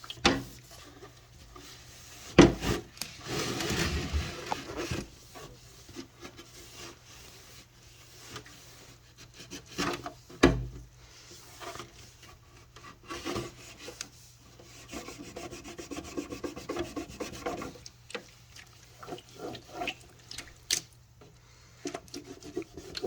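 Damp microfibre cloth scrubbing and rubbing over the inside of an old fridge in uneven strokes, with a couple of sharp knocks against the fridge.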